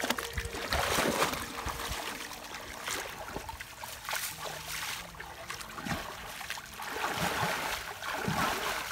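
Water splashing and sloshing as people wade waist-deep and sweep and slap the surface with their hands. There are stronger surges about a second in, around four seconds, and again over the last two seconds.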